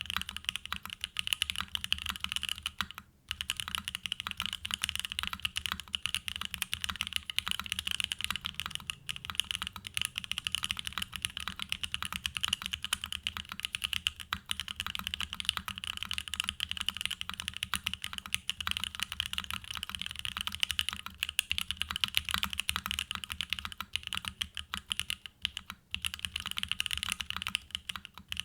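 Fast, continuous typing on a custom mechanical keyboard: a Mode Tempo with a carbon fibre plate, plate foam and hand-lubed Gateron Box Pink linear switches under GMK keycaps. It gives a dense stream of keystroke clacks with short pauses about three seconds in and near the end.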